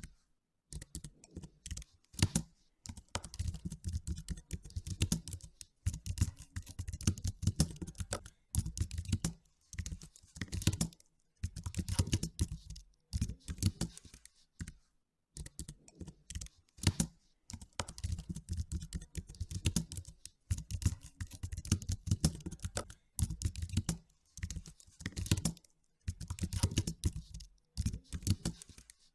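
Computer keyboard typing in bursts of rapid keystrokes with short pauses between them.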